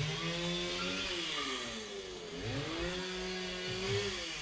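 Electric power tool's motor running at varying speed: it spins up, slows nearly to a stop about halfway through, then speeds up again and holds.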